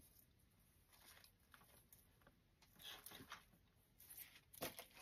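Faint rustling and light clicking of artificial flower stems and plastic foliage being handled, with a sharper tick a little before the end.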